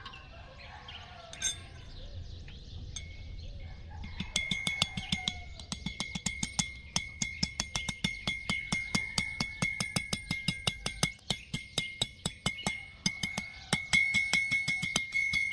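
Hammer striking an iron flat bar on a steel anvil in quick, even blows, about three a second, each leaving a bright metallic ring. The blows begin about four seconds in; before that there are faint birds chirping.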